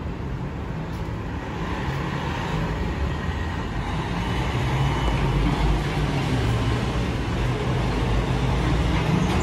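Roosevelt Island Tram aerial cabin drawing into its station: a steady low rumble and hum that grows louder over the first few seconds, then holds.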